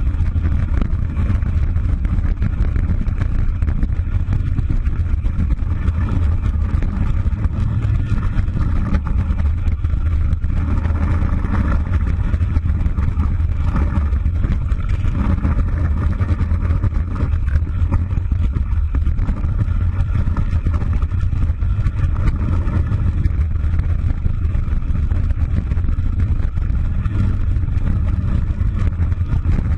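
Mercedes-Benz Viano van driving along a rough dirt track, heard from inside the cab: a steady, deep rumble of engine and wheels over the ground.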